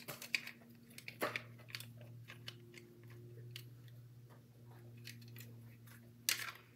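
A plastic adhesive tape runner being opened and its tape cartridge handled: irregular small plastic clicks and crackles, with louder clicks about a second in and near the end, over a low steady hum.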